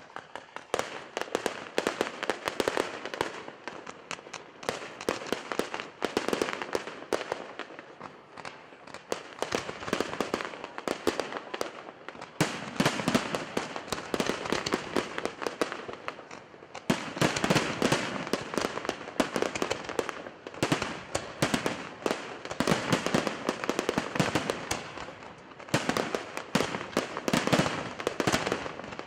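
Aerial fireworks going off in a dense, continuous barrage of rapid bangs and crackling, swelling louder in several stretches.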